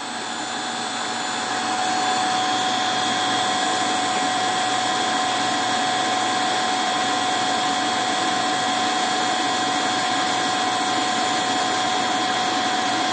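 Davey DynaDrive variable-speed booster pump motor running with a steady whine over a rush. The sound builds over the first couple of seconds and then holds as the pump speeds up to keep constant pressure while a third shower opens.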